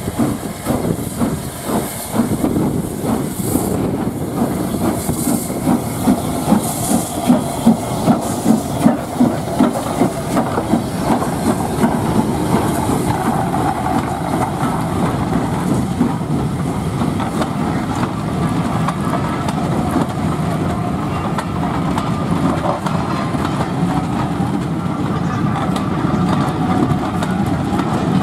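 Southern Railway S15 class 4-6-0 steam locomotive No. 847 working past with a hiss of steam, its exhaust beats at about two a second and loudest as it goes by. The coaches then follow with a steady rumble and clatter of wheels on the rail joints.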